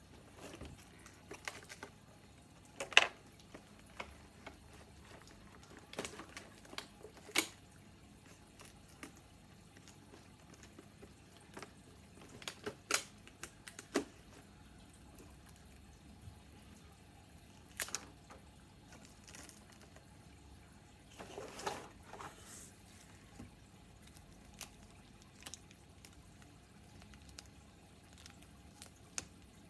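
Scattered clicks and taps of plastic toy pieces and packaging being handled, with one sharp click about three seconds in and a brief rustle a little past the middle.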